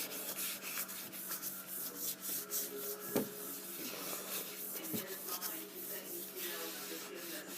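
A cleaning wipe rubbed over a laptop screen in irregular strokes.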